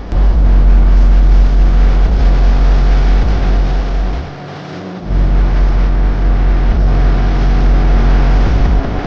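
Bass-boosted music with a very heavy, booming low bass under sustained tones. The bass cuts out for about a second around the middle, then comes back in.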